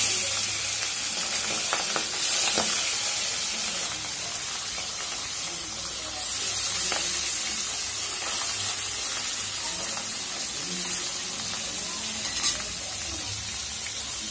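Pabda fish frying in hot oil in a kadai: a steady sizzle that swells a few times, with a few light knocks of a spatula on the pan, the sharpest near the end.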